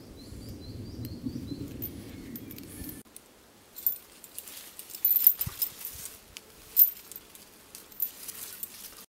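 Close handling noise as paracord is worked through a metal carabiner: a low rustling rumble with a few small bird chirps. After a cut about three seconds in come scattered rustles of dry leaves and a few sharp clicks from the cords and strap hardware, the loudest about five and seven seconds in.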